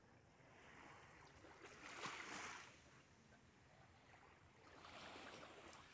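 Faint small waves washing on a sandy shore, the wash swelling up twice.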